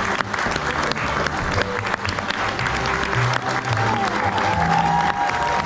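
Audience applauding in a theatre, many hands clapping steadily, with music playing underneath.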